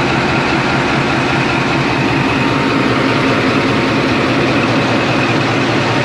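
Diesel-electric locomotive (Pakistan Railways ZCU-20) idling steadily, a continuous low engine hum with a constant rushing noise over it.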